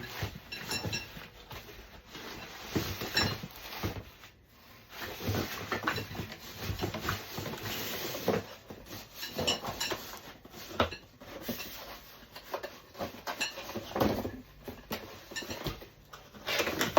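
Handling noise from unpacking and fitting together playard parts: rustling packaging with irregular clicks and knocks of the pieces, all through.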